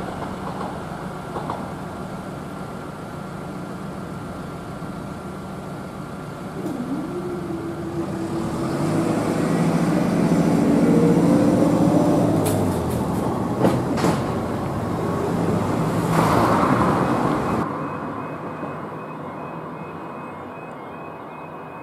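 Grand Central Class 180 Adelante diesel multiple unit on the move, its underfloor engines building up with a rising whine, loudest midway, and its wheels clicking over rail joints. Near the end this gives way to a level crossing warning alarm sounding in a quick repeating pattern.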